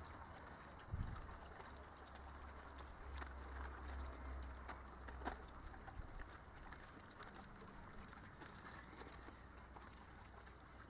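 Mackerel fillets sizzling faintly in olive oil on foil over charcoal, with a few light clicks and scrapes of metal tongs as the fish are turned. A low rumble runs underneath, strongest in the first half.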